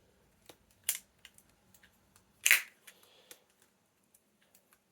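Custom Lego balisong being flipped: its plastic handles slap shut with a sharp clack about a second in and a louder one about halfway, with faint ticks between.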